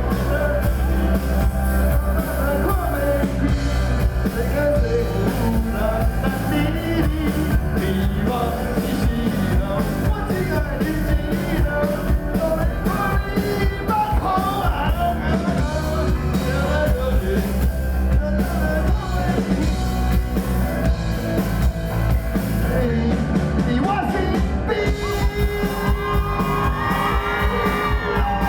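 Live rock band playing loudly: drum kit, electric guitar and bass guitar, with a winding lead melody over the chords.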